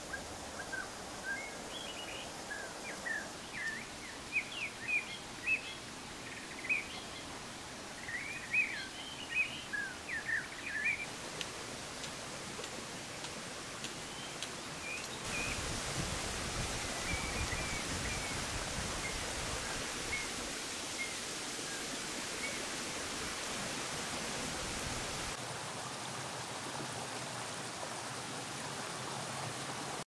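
Small birds chirping in quick bursts over a steady rush of flowing water; the chirps are thickest in the first ten seconds, and the water grows louder about halfway through.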